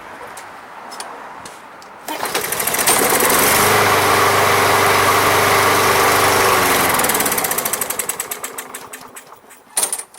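Briggs & Stratton single-cylinder four-stroke lawn mower engine catching on a pull about two seconds in, running steadily for about five seconds on Seafoam poured down the intake, then slowing and dying out, a sign that it will not yet keep running on its own fuel. A sharp clack near the end.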